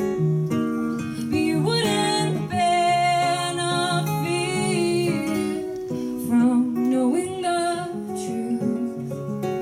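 Live acoustic guitar strumming chords, with a woman's voice singing a folk-country song from about one and a half seconds in.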